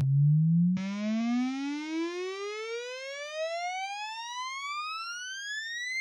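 A sine sweep played through a distorting guitar amp simulator plugin, rising steadily in pitch like a siren. About a second in, a buzzy stack of overtones joins it, with faint stray tones gliding down against the rising sweep: aliasing from the amp sim.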